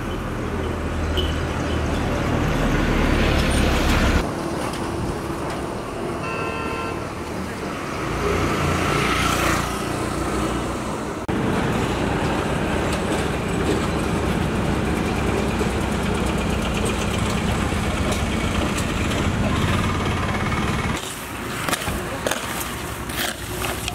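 Road traffic passing, with a short horn toot about six seconds in. Near the end, a broom scrapes and rasps dry leaves and grit into a cane basket.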